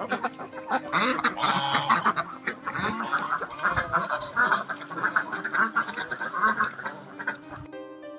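A flock of domestic ducks quacking, many short calls overlapping one another; near the end the quacking stops and soft background music comes in.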